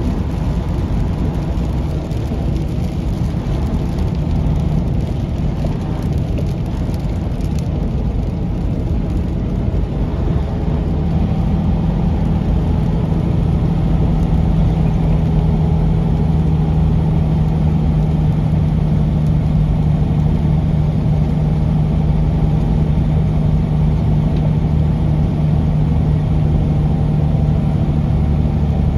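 Semi truck's diesel engine running under way, heard from inside the cab, over steady road noise. About ten seconds in, the engine gets louder and settles into a steady low tone.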